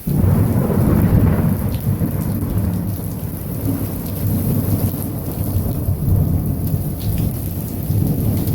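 Close thunder: a sudden clap right at the start that rumbles on through the whole stretch, over steady heavy rain.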